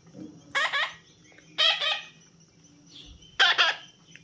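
Parrot squawking: three short, harsh, loud calls about a second apart.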